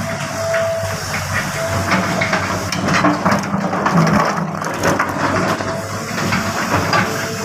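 Cat 320GC excavator working: its diesel engine running steadily under many irregular crunching and scraping sounds of the bucket working through rubble and earth.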